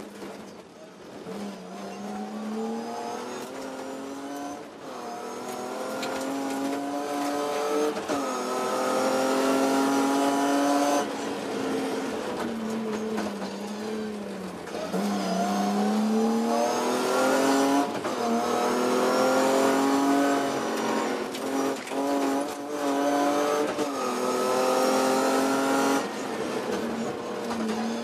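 BMW E30 M3 rally car's four-cylinder engine heard from inside the cockpit, revving hard under full acceleration: its pitch climbs in long sweeps and drops back at each gear change, several times over, above a steady rush of road and wind noise.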